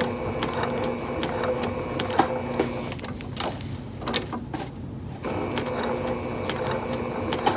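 Electric sewing machine stitching slowly through a cork overlay and cotton fabric, a steady motor hum with the regular tapping of the needle. The machine stops about three seconds in and starts stitching again about two seconds later.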